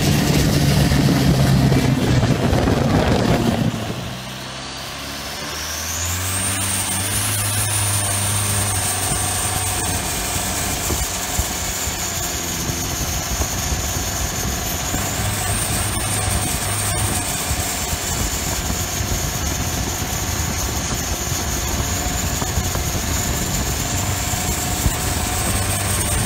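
Turbocharged diesel engine of a Thai longtail racing boat running. It is loud for the first four seconds or so, then drops. A high turbo whistle then climbs, falls away and climbs again twice as the revs change.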